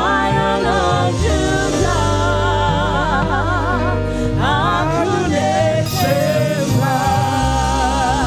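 Live gospel praise music: several voices singing with vibrato over a band with a steady bass line.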